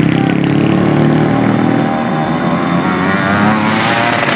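Small motor scooters climbing a steep hairpin under load, their engines running hard. A wavering higher whine joins in during the second half as one scooter comes up close.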